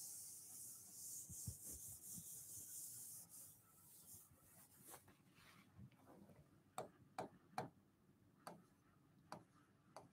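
Faint rubbing of an eraser wiped across a writing board, then light sharp taps of a pen writing on the board, several in the last few seconds.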